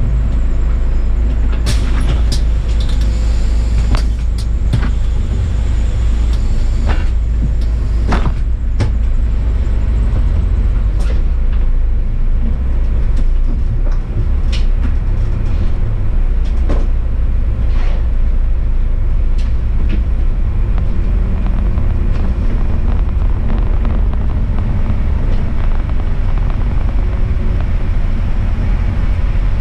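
A city bus on the move: a steady, loud low rumble of engine and road noise, with a scattering of sharp clicks and knocks, mostly in the first half.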